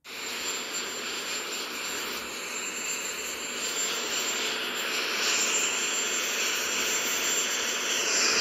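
Steady rushing noise of jet aircraft engines on an airfield, growing slightly louder toward the end.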